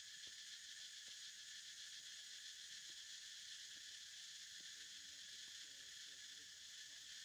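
Faint, steady high-pitched insect chorus, a continuous drone without pauses.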